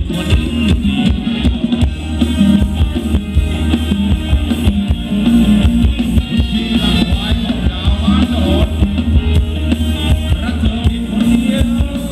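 Live band playing a Thai ramwong dance song, with a steady drum-kit beat, a heavy bass line and a singing voice.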